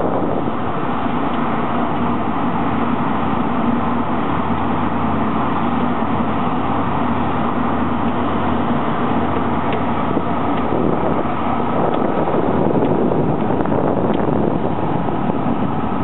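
A motor running steadily with wind buffeting the microphone; its hum shifts about eleven seconds in.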